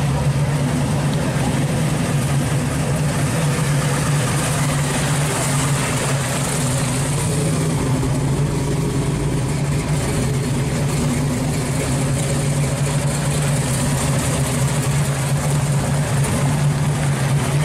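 Supercharged V8 of a 1971 Pontiac LeMans T-37 pro street car idling steadily.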